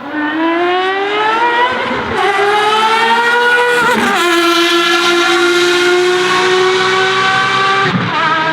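Ferrari FXX Evo's V12 accelerating hard, its pitch climbing through the gears with quick upshifts about two and four seconds in. It then holds a high, slowly rising note, with a brief dip near the end.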